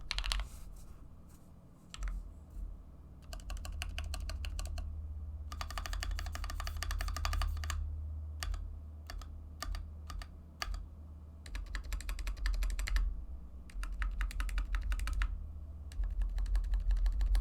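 Typing on a GMMK Compact mechanical keyboard with stock keycaps and Akko CS Matcha Green linear switches lubed with 205g0, its case packed with PE foam, PCB foam and a tempest tape mod. Fast runs of keystrokes a second or two long alternate with short pauses and scattered single key presses.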